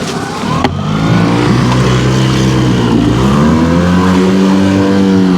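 Outboard motor running and revving: a knock just under a second in, then the engine note rises, dips briefly around three seconds and climbs again to a steady higher pitch.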